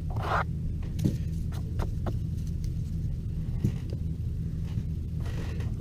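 Paper baseball cards and pack wrappers being handled, giving a few soft scrapes and rustling clicks over a steady low hum.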